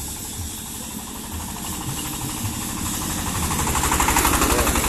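Diesel engine of a self-propelled mobile bandsaw rig chugging with a rapid, even beat as it drives along the road. It grows much louder about three seconds in as the rig comes close.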